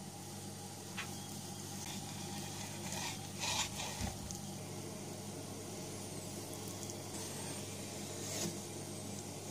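Knife slicing through salted salmon on a wooden cutting board: a few short scraping strokes, the clearest about three seconds in and again near the end, over a steady low hum.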